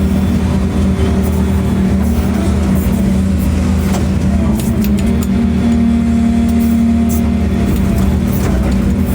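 Large engine running at a steady speed, a constant hum with several held tones and a few faint light clicks.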